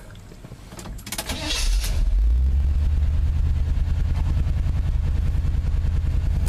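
1979 Chevy truck's 350 small-block V8 running. After a brief hissing burst about a second in, it gets much louder and holds a deep, steady exhaust note from about two seconds in. The engine has a nagging misfire that the owner cannot pin down, since plugs and compression look sound.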